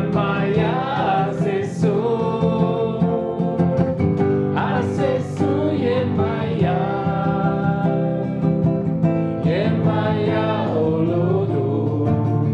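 An acoustic guitar played steadily while voices sing along together, a simple chant-like song.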